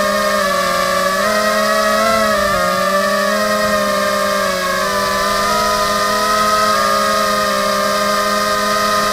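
Electric motors and propellers of an FPV drone in flight, heard from its onboard camera: a loud, steady whine of several tones whose pitch rises and falls a little with the throttle.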